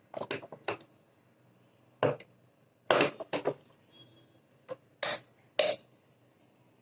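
Several separate knocks and clinks of cookware as a kadai is set on the stove and handled, each one short and sharp.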